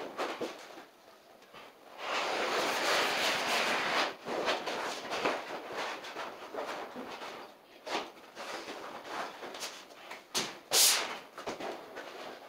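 Vinyl sheet flooring being handled on the floor: the sheet rustles, slides and scrapes as it is folded back and pressed into place along the wall. There is a longer rushing scrape about two seconds in and a brief, sharp scrape near the end, with scattered knocks between.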